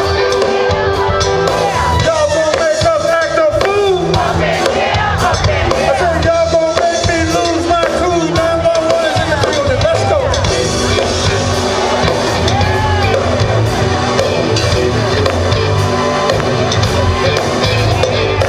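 Band music with singing over a steady low beat, with some crowd voices.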